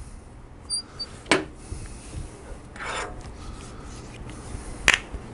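Metal parts of a motorcycle kickstarter cover being handled: a couple of sharp light clicks, about a second in and near the end, and a short scraping rub about halfway through.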